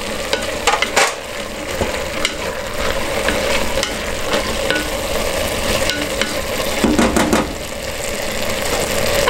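Ground beef, onion and beans sizzling in a pot while a wooden spatula stirs and scrapes through them, with sharp clicks of the spatula against the pot.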